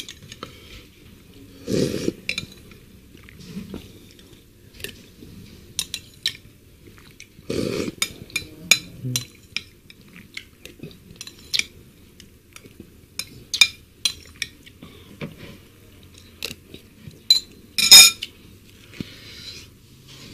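Metal spoon clinking and scraping against a bowl as the last of the seblak broth is scooped up, with a couple of louder eating sounds in between. A single loud clink near the end as the spoon is set down in the emptied bowl.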